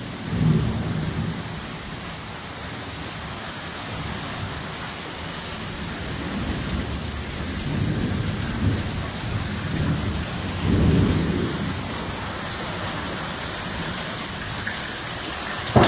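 Heavy rain pouring steadily in a thunderstorm, with low rumbles of thunder about half a second in, around eight seconds, and a longer, louder one near eleven seconds. A sudden sharp crack comes at the very end.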